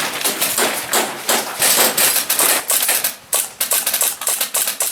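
Airsoft guns firing: a rapid, irregular clatter of sharp snapping shots, several a second.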